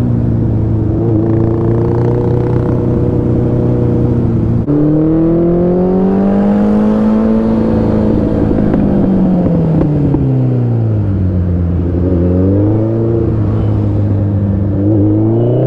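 Suzuki Hayabusa's inline-four engine heard from the saddle while riding: a steady drone that steps up in pitch about five seconds in and climbs as the throttle opens, then falls away as the bike slows, rising briefly again near the end.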